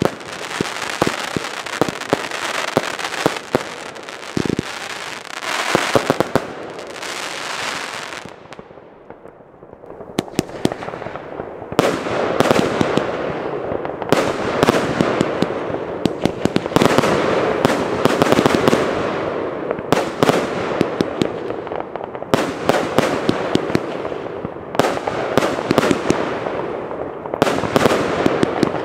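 Consumer firework batteries firing: a quick run of sharp bangs and crackling bursts dies down to a short lull about a third of the way in. Then the Lesli Bloodhound battery starts up with a dense, steady run of shots and crackle.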